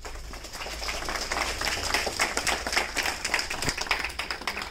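Audience applauding, a dense patter of many hands clapping that swells about two seconds in.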